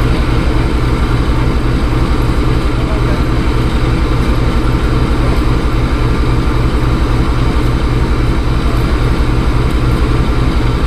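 WDG-4G diesel locomotive's 12-cylinder GE Evolution engine idling, a steady, even low throb that does not change.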